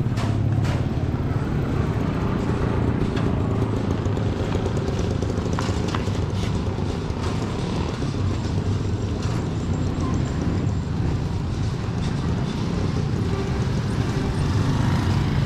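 A steady low engine hum with faint voices and a few scattered knocks.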